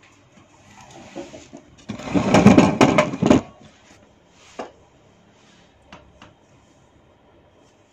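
Hair-cracking massage (cetut rambut): tufts of hair tugged and rubbed close to the microphone, a dense run of rustling and sharp cracks for about a second and a half, then a few single pops.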